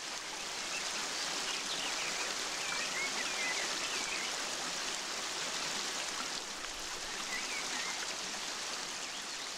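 Steady rush of a small waterfall splashing into a rocky stream, with a few faint high chirps about two to three seconds in and again near seven seconds.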